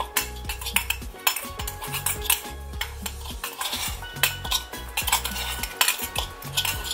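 Metal spoon stirring a thick seasoning mixture in a small stainless-steel cup, scraping and clinking against the sides in quick, irregular clicks.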